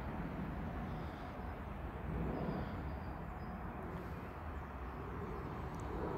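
Low, steady rumble of a distant approaching locomotive transfer train, slowly growing louder.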